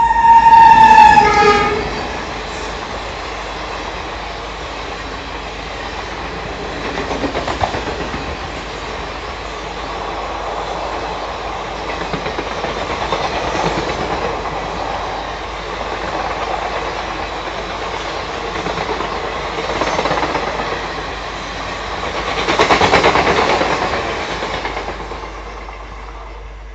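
WAP7 electric locomotive's horn sounding loudly and dropping slightly in pitch as it passes, cutting off about two seconds in. Then the express's passenger coaches rolling past with wheel clatter on the rails, swelling several times and fading near the end as the train moves away.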